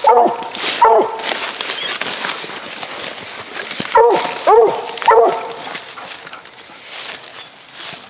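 Redbone coonhound barking treed at the foot of a tree: a pair of loud barks at the start, then another pair about four seconds in.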